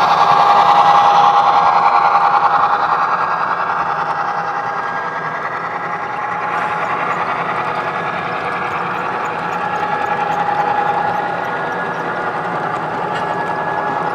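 Model passenger train running past, a steady whir of its motor and wheels rolling on the rails with a steady whine. Louder for the first few seconds as the diesel locomotives pass, then a little quieter as the passenger cars roll by.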